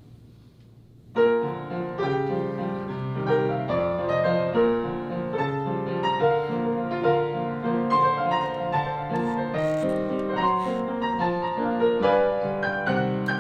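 Piano playing an instrumental passage of sustained notes and chords. It comes in abruptly about a second in.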